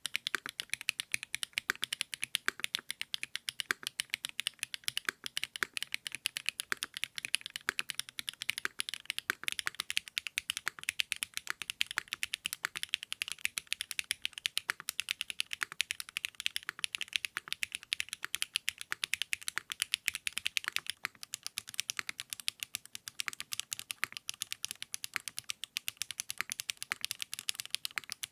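Continuous fast typing on a custom mechanical keyboard fitted with 80Retros x HMX KD400 switches: a steady stream of crisp keystroke clicks, several per second, without a break.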